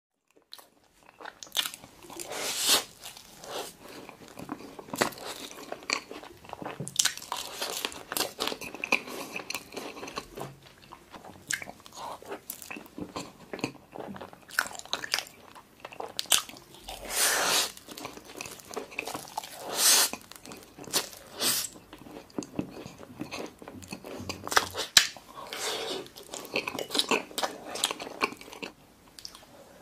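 A man chewing mouthfuls of soft desserts (cream cake and mochi) with wet clicks and smacks of the mouth, and sharper, louder crunches or clicks now and then. It starts about half a second in, after silence.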